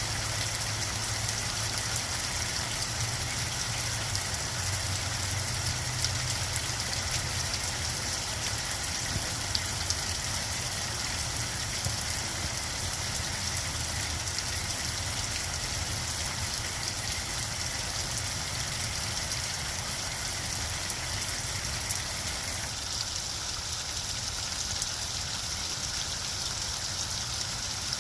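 Steady rain shower falling, a dense patter of drops with frequent individual drop ticks, over a low steady rumble.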